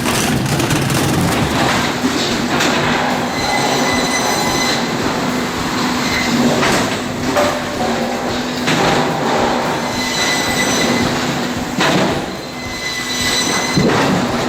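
Large firewood processor running, with a steady hum and high metallic whining tones that come and go. Several sharp knocks of wood and metal cut through it.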